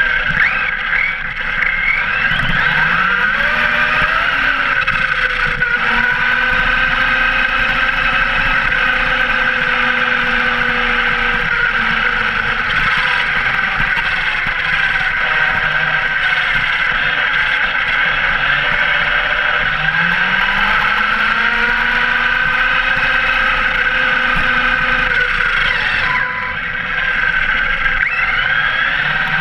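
Arrma Kraton V3 RC truck's brushless motor and drivetrain whining on a 6S battery, heard up close from a camera mounted on the truck, with tyre and road noise underneath. The whine rises in pitch as the truck speeds up about two seconds in and again about twenty seconds in.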